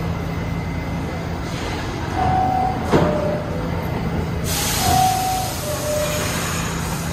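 New York subway train standing at the platform with doors open, its equipment humming steadily, while a two-note falling ding-dong door chime sounds twice, the warning before the doors close. A sharp click comes between the two chimes, and an air hiss starts after the first.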